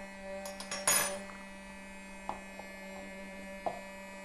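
Handheld food smoking gun's small fan motor running with a steady electric hum while it pumps smoke over the tuna. About a second in there is a sharp clink, with two fainter taps later.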